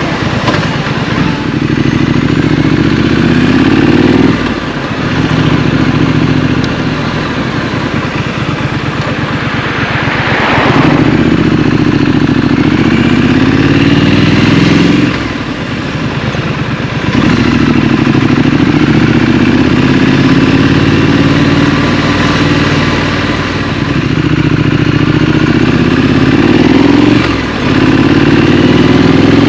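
Scrambler motorcycle engine pulling through the gears. Its pitch climbs steadily, then drops briefly at each of about three gear changes, with road and wind noise underneath.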